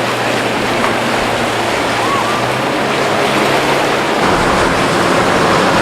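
Outboard boat engine running under the rush of breaking waves and wake wash, its note changing about four seconds in.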